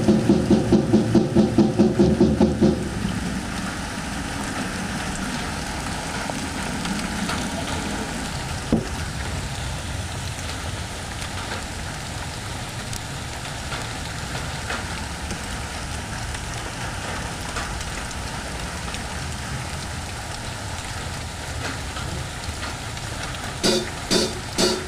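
A rhythmic, pitched chugging from the band's instruments stops about three seconds in. It leaves a steady hiss with a single knock a few seconds later. Near the end, loud hits about two a second begin, with the drum kit coming in.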